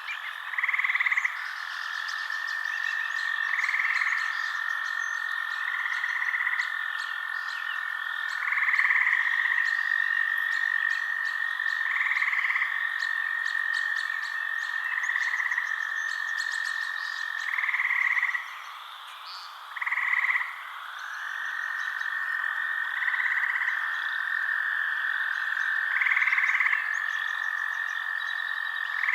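Frogs calling at night: a steady high trill with louder calls repeating about every two to three seconds, and faint clicking higher up. The chorus dips briefly about two-thirds of the way through.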